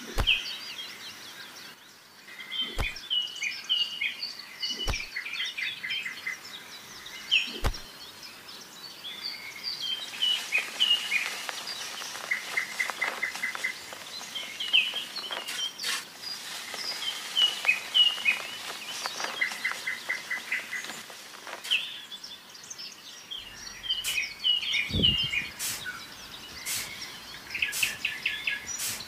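Many small birds chirping and trilling without a break, with quick rapid-fire trills mixed in among single chirps. A few light knocks sound now and then, the loudest about three-quarters of the way through.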